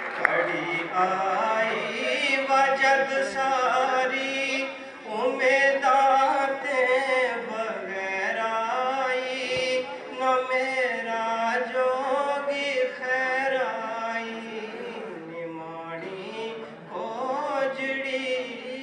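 A man chanting a Gojri ghazal in a slow, melodic voice, holding long notes in phrases a few seconds long, over a steady low drone.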